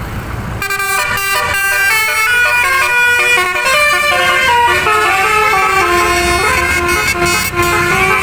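Bus 'telolet basuri' multi-note horn playing a quick tune, its notes stepping up and down, starting about half a second in, over a low rumble.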